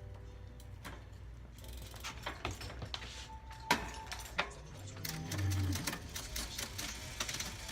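Rapid mechanical clicking and ticking from a bicycle drivetrain being worked on, with a sharp louder click about four seconds in and denser fast clicking near the end.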